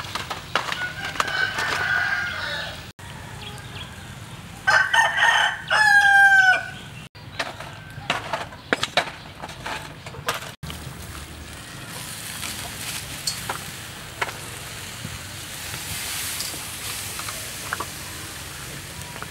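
A rooster crows about five seconds in, the loudest sound, ending in a long falling note. A softer fowl call comes just before it, and scattered light clicks run throughout.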